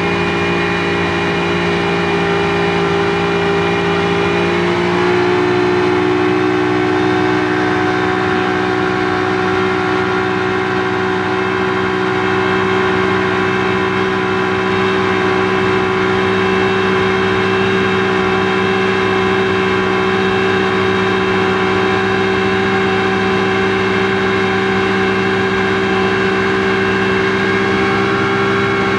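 Speedboat engine running steadily at cruising speed, heard from on board; its pitch rises slightly about five seconds in, then holds.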